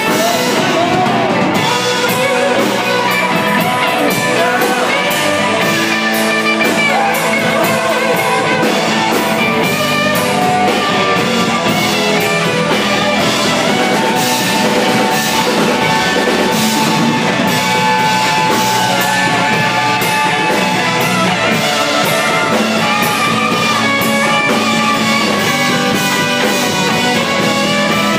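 Live blues band playing: electric guitar lead with bending notes over a steady drum-kit beat.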